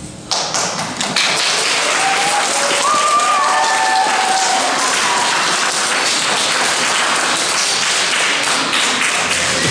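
Audience applauding, a dense clapping that starts suddenly about a second in and holds steady.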